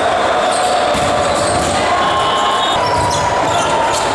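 Reverberant din of a large multi-court gym hall during volleyball play, with sharp smacks of volleyballs being hit or landing on the hardwood scattered through it.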